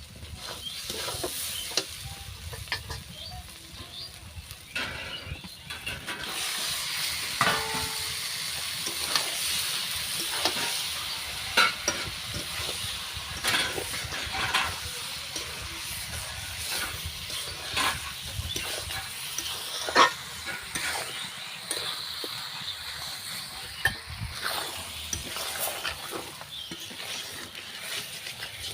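Chicken curry sizzling as it fries in a pan, stirred with a metal utensil that scrapes and knocks against the pan every few seconds.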